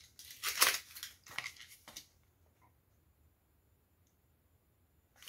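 Clear plastic clamshell pack of a Scentsy wax bar crackling and snapping as it is handled and pried open, several rustly strokes over about two seconds, then near silence.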